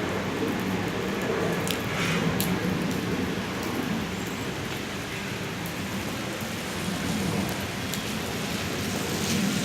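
Steady rain falling and pattering on surfaces, with a low rumble underneath and a couple of sharp drop ticks about two seconds in.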